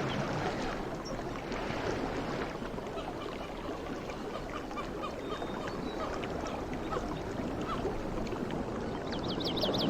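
Sea water washing and lapping in a steady rush. Near the end a bird gives a quick run of chirps.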